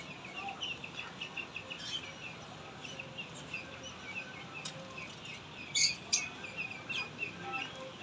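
Many birds chirping in short, quickly repeated notes, with a brief louder rustle about six seconds in.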